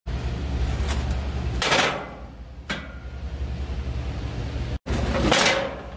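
Metal cooking grates set down into a gas grill, clanking twice: once about two seconds in and again near the end, with a small click between them, over a low steady rumble.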